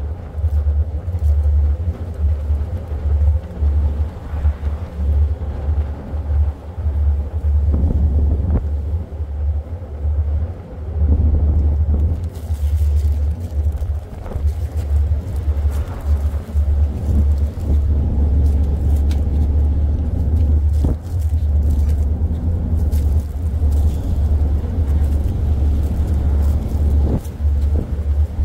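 Wind buffeting the phone's microphone on a boat deck: a loud low rumble that cuts in and out in irregular gusts. Faint clicks and rustles from a dog chewing a treat sit underneath.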